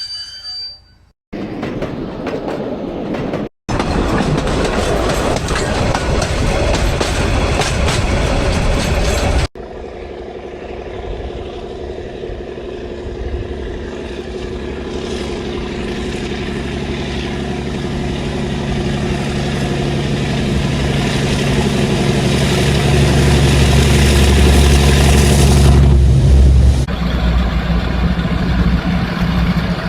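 A string of separate train sound-effect recordings joined by hard cuts: a few short clips, then a long stretch of a train running, with a steady low drone, that slowly grows louder before cutting off suddenly.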